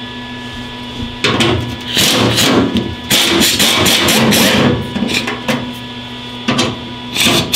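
Impact gun running in three bursts, two of about a second and a half and a short one near the end, backing screws out of the truck's sheet-metal quarter panel, with a steady hum behind.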